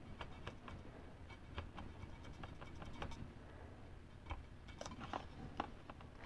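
Faint, irregular small clicks and scratches of a razor blade working masking tape on a micrometer frame, trimming it along the frame's edge, with fingers pressing the tape down. One sharper click comes near the end.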